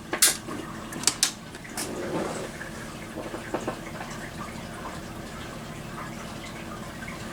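A few sharp clicks in the first two seconds as the room lights are switched off, then a steady faint room hiss with a low hum. The LED strobe flashes silently, with no capacitor buzz or high-pitched whine.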